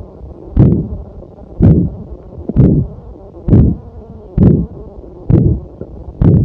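Stomach growling: seven buzzy, low gurgling surges at an even pace of about one a second, over a steady low rumble.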